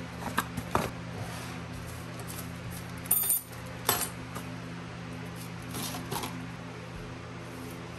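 Handling noise on a wooden workbench: short knocks and clicks of parts, a cardboard box and tools being picked up and set down, with a sharp metallic clink about three seconds in, another knock a second later and a brief rustle near six seconds. A steady low hum runs underneath.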